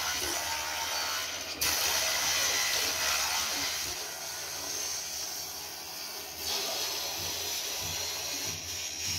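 Tools working wood to make wooden rulers: a steady rasping, grinding noise that changes abruptly about one and a half seconds in and again about six and a half seconds in.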